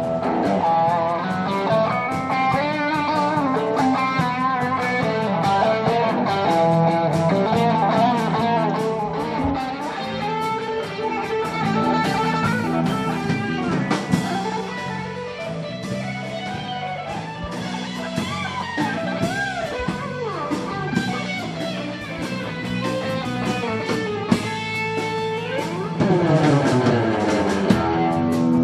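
Small live band playing, with electric guitar to the fore over a drum kit.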